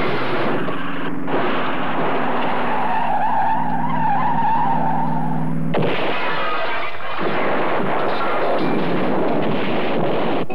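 Film car-chase sound effects: car engines running with tyres squealing, then a sudden rough, noisy change about six seconds in.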